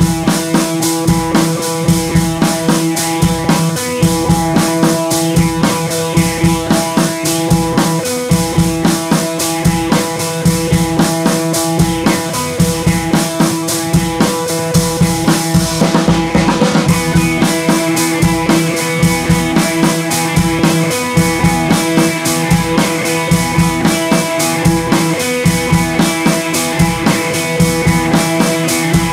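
Background music with a steady drum-kit beat under sustained tones; the music changes about halfway through, where a higher tone comes in.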